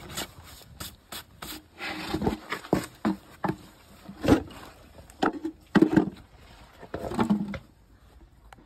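Farrier work on a Shire horse's hoof at a hoof stand: irregular rasping and scraping strokes mixed with several sharp knocks, the loudest about four and six seconds in.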